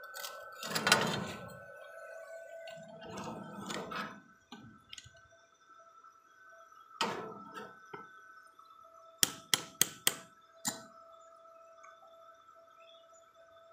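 Stick-welding arc crackling in short bursts as a steel door-wheel bracket is tack-welded, then a quick run of five or so sharp metallic clinks of steel being knocked. A faint steady whine sits underneath.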